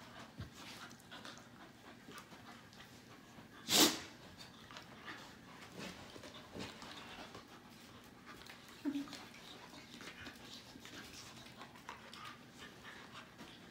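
Two dogs play-wrestling, with mouthing, scuffling on a bed and panting. One loud sharp sound about four seconds in and a short low grunt near nine seconds stand out above the rest.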